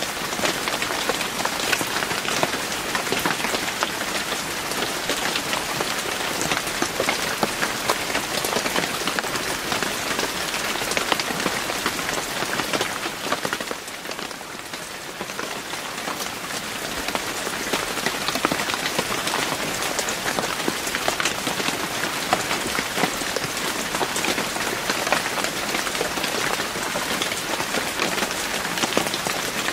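Steady heavy rain falling on a surface, a dense hiss with many individual drops ticking through it. The rain eases briefly about halfway through, then builds back up.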